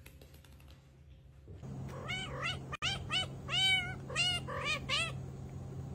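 A tabby cat meowing, a quick run of about eight short meows that starts about two seconds in, with one longer meow in the middle, over a low steady hum.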